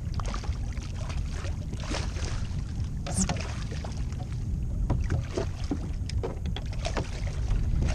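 Water splashing and sloshing at the side of a fishing kayak, with scattered knocks and clicks, as a hooked jack is brought alongside and grabbed by hand. A steady low rumble of wind on the microphone runs underneath.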